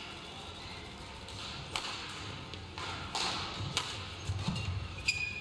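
Badminton rally: a shuttlecock struck by rackets in several sharp cracks, with players' footwork on the court and a short shoe squeak near the end.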